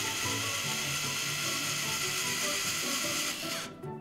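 Cordless drill boring a hole into a painted pine door frame, its motor running steadily before stopping suddenly a little over three seconds in.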